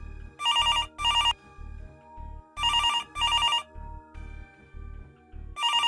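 Telephone ringing in a double-ring pattern, three pairs of rings in all, over background music with a low, steady beat.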